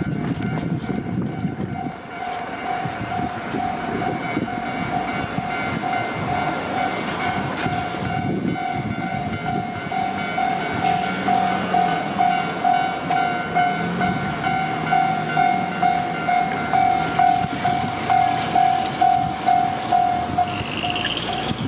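Japanese railroad crossing warning bell ringing in a steady, rapid kan-kan while a JR Freight train runs past on the freight line. The train noise beats in an even rhythm in the second half, and the bell stops shortly before the end.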